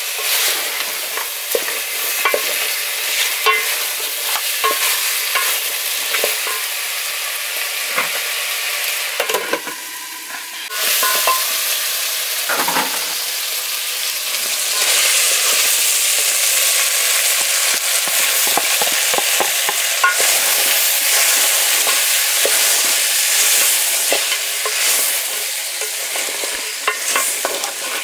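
Goat meat frying in oil in a steel pot, sizzling steadily, while a wooden spoon stirs and scrapes against the pot with small clicks; the stewing water has cooked off so the meat is now frying. The sizzle grows louder about halfway through.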